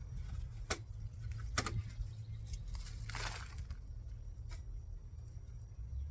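Rustling and a few sharp knocks from potatoes being dug out of garden soil, over a steady low rumble.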